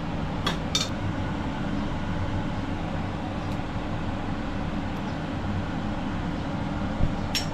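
Steady low rumble of kitchen background noise, with a couple of light clicks about half a second in and a sharper click near the end.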